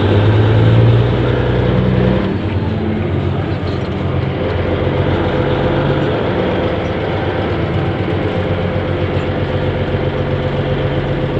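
Caterpillar diesel engine of a Peterbilt semi tractor running as the truck drives, heard from inside the cab. A low, steady drone, a little louder for the first couple of seconds before settling.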